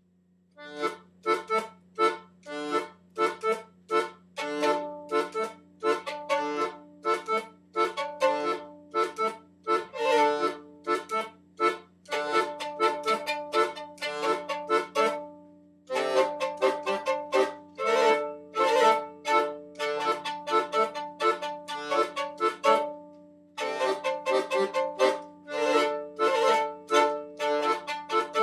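Instrumental folk-style music: a quick run of sharply struck notes over a steady low drone, pausing briefly twice, about 16 and 23 seconds in.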